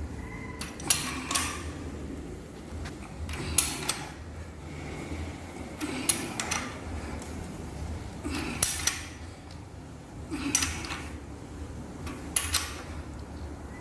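Metallic clicks and clinks from a hand tool turning the 2UZ-FE V8 over by hand, in six short clusters about every two seconds, one per stroke of the wrench.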